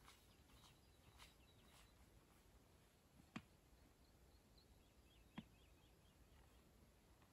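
Near silence outdoors, with two sharp clicks about two seconds apart in the middle and faint short bird chirps between them.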